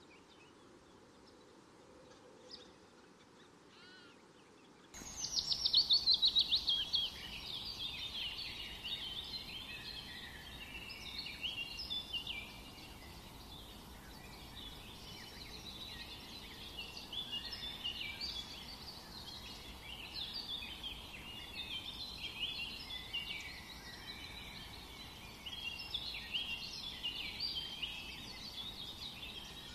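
A dense chorus of small birds chirping and twittering, many calls overlapping. It cuts in suddenly about five seconds in, loudest just after it starts, after a quiet opening with only a few faint chirps.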